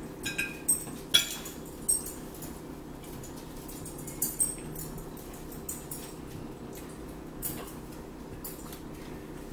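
Fork clinking and scraping against a plate while eating: several sharp clicks in the first two seconds, then a few scattered ones, over a low steady hum.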